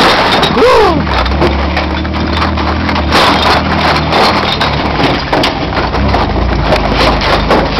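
A 4x4 working slowly over a rough trail, with many sharp cracks and knocks as the body rattles and brush scrapes and snaps against it, over a steady low engine hum. A short squeal rises and falls about a second in.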